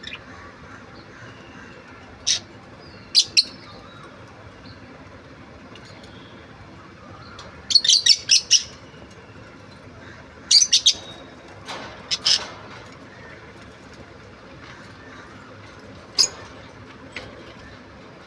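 Budgerigar giving short, sharp chirps in scattered bursts: single calls and pairs, and quick runs of four or five, over a steady low background hum.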